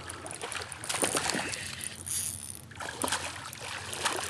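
Hooked smallmouth bass splashing and thrashing at the water's surface while being played on the line, with scattered small clicks and water splashes.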